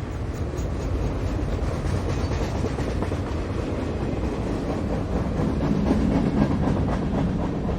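Freight train rolling past: a steady, loud rumble of wagons with quick clicking of wheels over the rails. It swells a little about six seconds in.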